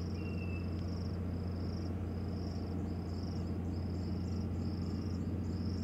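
An insect chirping in the background: short, high, buzzing chirps of about half a second each, repeating steadily, over a constant low hum. A brief thin whistle sounds near the start.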